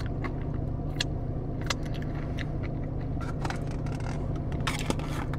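Steady low hum of a parked car's idling engine and cabin heard from inside, with scattered light clicks and crackles throughout.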